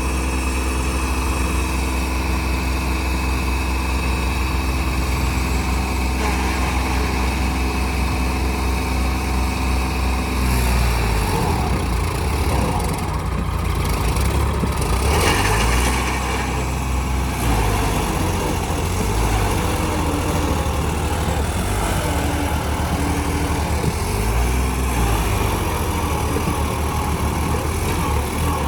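Tractor diesel engine running, steady at idle for about the first ten seconds, then turning rougher and more uneven for the rest.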